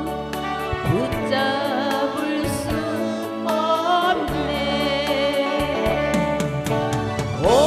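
A woman singing a Korean trot song live into a handheld microphone over an instrumental accompaniment with a steady beat, her voice sliding up into held notes about a second in and again near the end.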